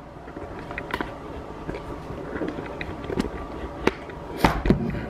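Handling noise: clothing rustling close to a handheld camera, with scattered light knocks and clicks, the loudest about four and a half seconds in.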